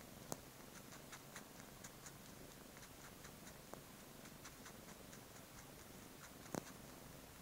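Siamese cat sucking on a blanket: faint, soft clicks and smacks of its mouth working the cloth, about two a second, with two louder clicks shortly after the start and near the end. This is wool-sucking, a nursing-like comfort habit common in Siamese cats.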